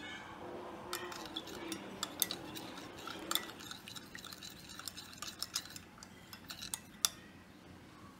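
Metal spoon stirring yeast liquid in a glass measuring jug, clinking and scraping against the glass again and again, with one sharper clink about seven seconds in.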